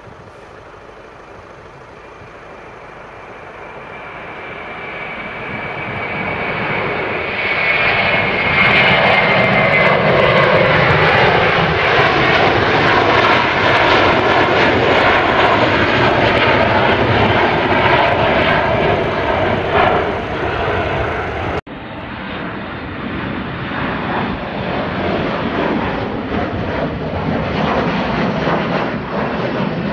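Jet engines of an Airbus A321 at takeoff power: a steady jet noise that builds up over several seconds and stays loud as it climbs past, with a high whine sliding down in pitch. About two thirds of the way through the sound cuts abruptly to a Boeing 737's jet engines climbing out.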